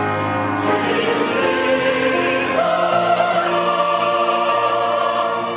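Mixed choir of men's and women's voices singing a Korean sacred anthem in long held notes, moving to a new chord about halfway through.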